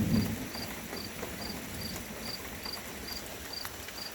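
A cricket chirping steadily, about two and a half short chirps a second, over a steady hiss of rain. A low rumble sits underneath in the first half second.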